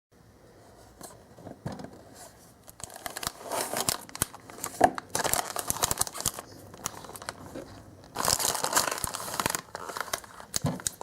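Packaging of a DIY candy kit being handled and torn open: irregular crinkling and tearing of plastic and paper, louder for a stretch about eight seconds in.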